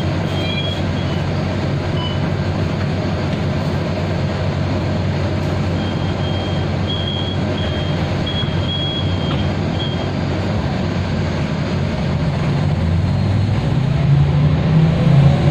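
Mercedes-Benz O405G articulated bus heard from inside the cabin: the diesel engine drones steadily, then near the end grows louder as the bus accelerates, and the ZF automatic gearbox starts a rising howl. A few brief high tones sound in the middle.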